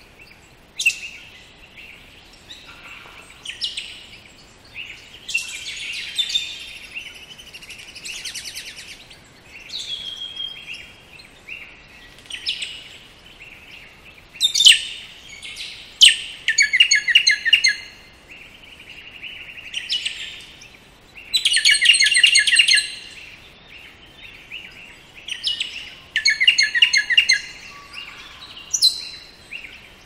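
Sulphur-crested cockatoos calling in a string of harsh, raspy squawks at irregular intervals, some short and some drawn out for a second or two. The loudest come about halfway through and again around two-thirds of the way in.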